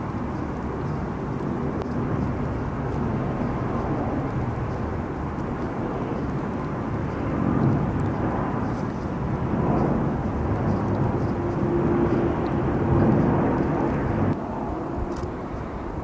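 Jet airliner engine noise heard outdoors: a steady rush that swells a few times and then falls away abruptly near the end.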